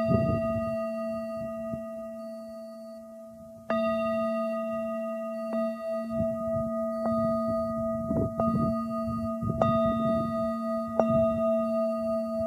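Metal singing bowl struck repeatedly, its ringing held throughout: a strong strike at the start, another about four seconds in, then lighter strikes every second or so. Low, uneven rumbles of wind on the microphone sit underneath.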